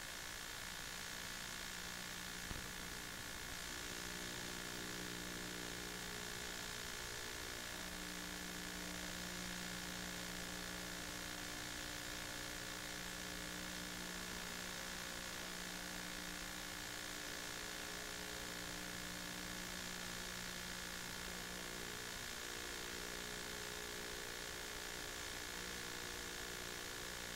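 Steady electrical hum and hiss with a faint buzz, with no sound from the scene itself; a single short click about two and a half seconds in.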